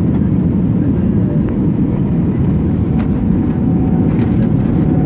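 Airbus airliner heard from inside the cabin after touchdown: a steady, loud rumble of engines and wheels as it rolls along the runway.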